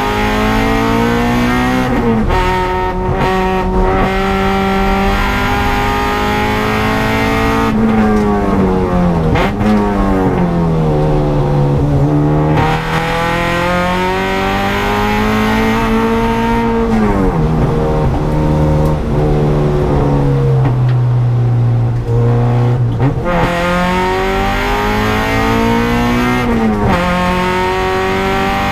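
Honda EG Civic race car's engine at full throttle, heard inside the cabin. The engine note repeatedly climbs in pitch and then drops sharply at the gear changes and braking for corners, about six times.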